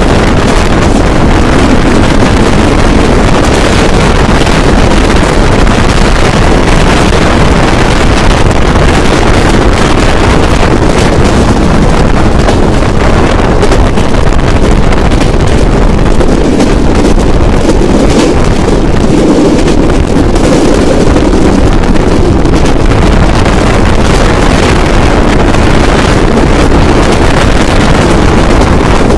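Steady, loud wind buffeting the microphone held out of a moving passenger train's window, over the constant rumble of the coach running at speed on the track.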